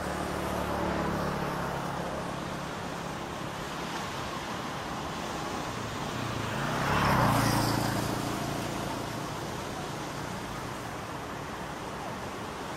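Waves breaking and washing onto a sandy beach over a steady low motor hum; the sound swells to its loudest about seven seconds in, then fades back.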